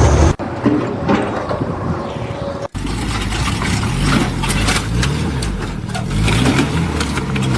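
An engine running, its pitch rising and falling as it speeds up and slows down, after two abrupt cuts between different recordings.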